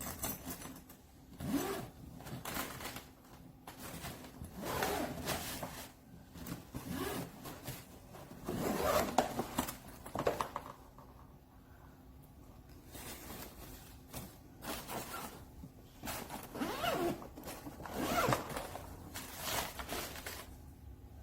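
Hardshell suitcase zipper being zipped in a series of short strokes with pauses between them.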